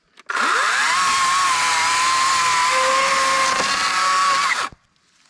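Cat 60V DG631 cordless electric chainsaw triggered: the motor and chain spin up with a quick rising whine, run at a steady high speed for about four seconds, then stop abruptly when the trigger is released. Said to be a little bit loud, but not insanely loud.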